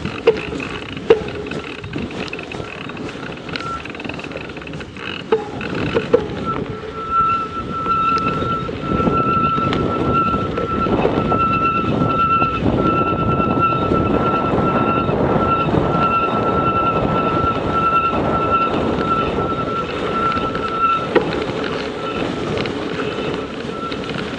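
Ride noise: a steady rumble of wind and tyres, with a thin high whine that pulses evenly through most of the stretch and a few sharp clicks near the start.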